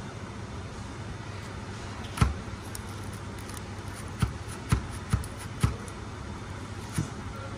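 Irregular sharp clicks and knocks of hands and tools handling car parts during repair work, about six of them, the loudest about two seconds in, over a steady low hum.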